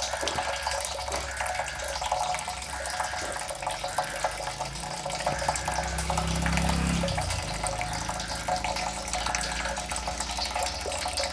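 Water drops falling fast and irregularly, with a low tone that rises in pitch from about five seconds in and stops at about seven.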